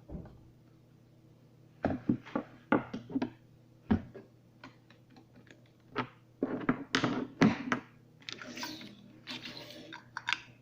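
Irregular knocks, clicks and clatter of tools and parts being handled during repair of an oxygen concentrator's motor, over a faint steady hum.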